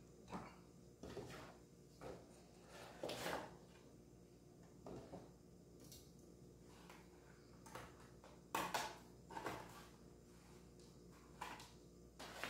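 Faint, irregular rustles and light knocks from small plastic spoons and twist ties being handled and fitted onto little gift boxes, about a dozen short sounds with the loudest a little past the middle.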